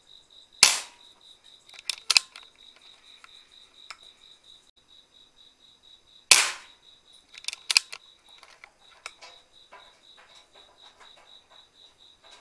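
Two shots from a PCP air rifle, one under a second in and one about six seconds in, each followed a second or so later by a few quick sharp clicks. Crickets chirp steadily throughout.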